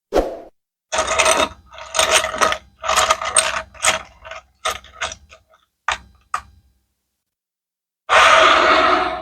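Several bursts of fast mechanical clicking and rattling, thinning to single clicks after about four and a half seconds. After a second of silence, a dense noisy rush comes near the end.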